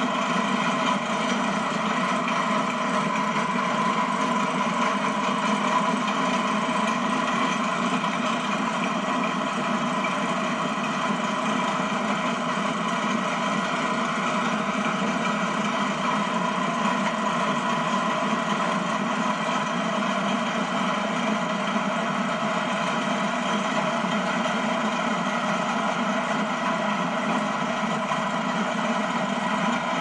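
Ford tractor engine running steadily while it powers a one-row International Harvester corn picker that is picking ear corn. The engine and picker together make an even, unchanging machine drone with a steady hum.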